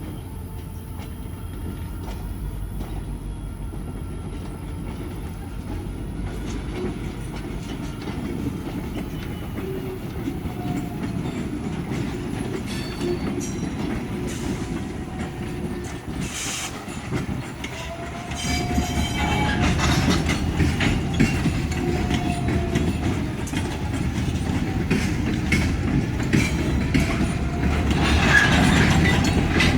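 Diesel-hauled freight train rolling through a rail yard: steady engine rumble with wheels clicking over the rail joints. It gets louder about eighteen seconds in as the train draws closer.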